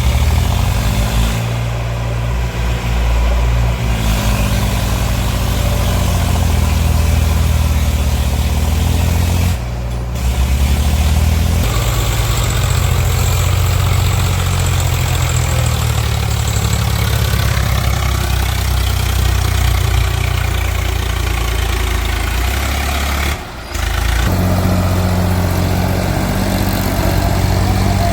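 Heavy diesel engine running, its pitch shifting up and down at times. The sound breaks off briefly twice, about a third of the way in and again past three-quarters of the way through.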